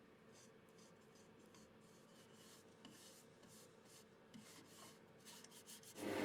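Faint, dry rubbing strokes against a wooden bowl, coming more often towards the end, with a faint steady hum beneath. A louder rush of noise comes in just before the end.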